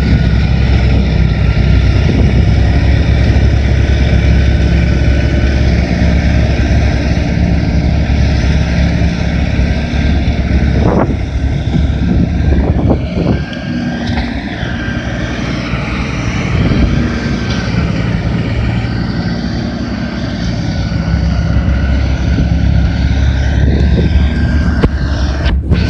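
LS XR4155H 55 hp tractor's diesel engine running steadily while clearing snow. The engine note eases briefly about halfway through, then picks up again toward the end.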